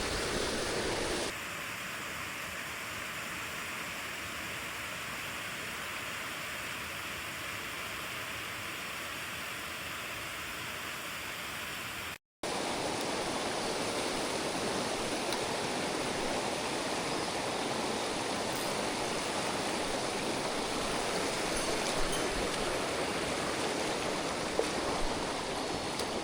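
Mountain stream water rushing, a steady wash of noise. Its character changes abruptly about a second in, it drops out for a moment around twelve seconds, and it returns louder.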